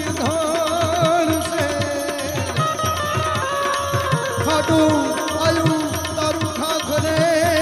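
Indian devotional music: tabla playing a steady rhythm, its bass drum bending in pitch, under a wavering melody line with vibrato.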